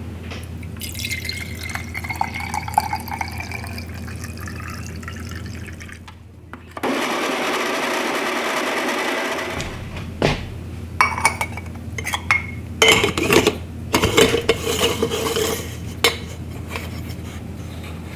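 Water poured from a glass jar into the stainless steel base of a moka pot, the pitch of the filling rising as the base fills. A loud, steady noise of unclear source follows for about three seconds, then clinks and scraping of metal as the pot's top chamber is screwed onto the base.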